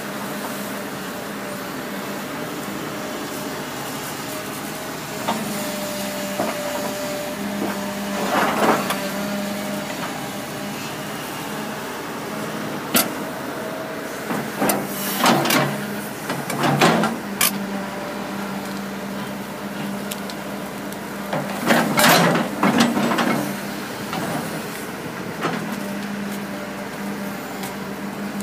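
Diesel engine of a 1996 Kobelco SK300LC hydraulic excavator running steadily. Several louder bursts of hissing and clanking come as the machine works, the biggest about halfway through and again about three quarters through.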